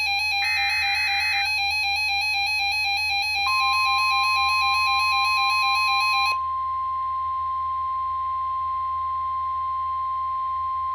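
NOAA Weather Radio alert signalling. A one-second screechy SAME digital header burst comes about half a second in, over a pulsing, buzzy electronic alarm tone that cuts off about six seconds in. About three and a half seconds in, the steady 1050 Hz weather-radio warning tone begins and holds.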